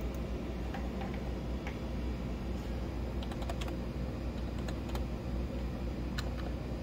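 Typing on a computer keyboard: scattered key clicks, a few at a time in short runs, over a steady low hum.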